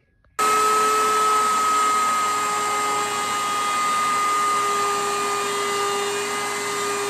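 Table-mounted router spinning a chamfer bit with a steady high whine while a hardwood board is fed past it, cutting a decorative chamfer along the edge. The whine drops slightly in pitch for a few seconds while the bit is cutting.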